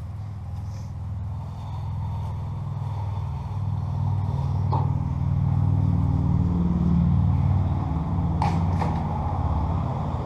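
A low engine drone that grows louder toward the middle and then eases off, with a sharp knock about five seconds in and two quick knocks near the end.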